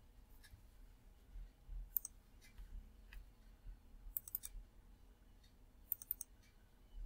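Faint clicks of a computer mouse: scattered single clicks, with quick little clusters about four and six seconds in.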